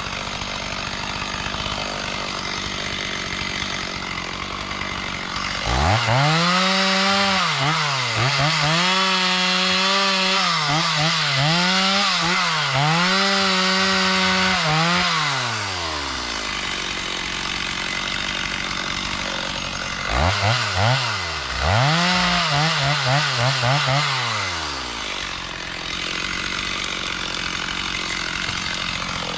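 Chainsaw idling, then revved to full throttle about six seconds in for around nine seconds and again for a few seconds near the end. Each time its pitch dips and recovers several times as it cuts into wood.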